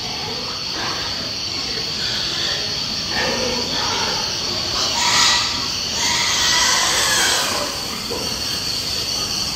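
Pigs squealing in a crowded pen, the loudest squeal about five seconds in and another longer one just after, over a steady high whine.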